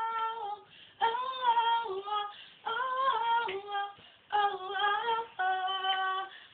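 A girl singing unaccompanied: a run of short phrases of held, sustained notes, with brief breaks between them.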